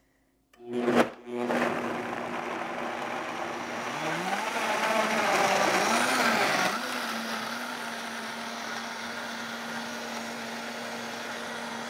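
Vitamix blender switched on and ramped from low up to high speed, its pitch climbing and wavering as it chops through carrots, pineapple, lemon, ginger and ice in water. It is loudest just before about seven seconds in, then settles into a steady high-speed whir as the mix turns smooth. A short tone sounds about a second in, before the motor starts.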